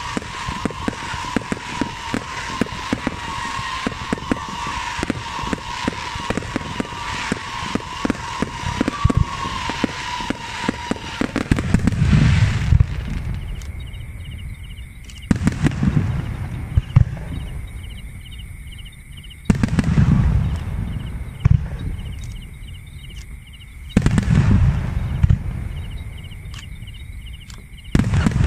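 Aerial fireworks display: for about twelve seconds a dense barrage of rapid crackling pops under a wavering high whistle, then single heavy shell bursts booming about every four seconds, each fading over a couple of seconds.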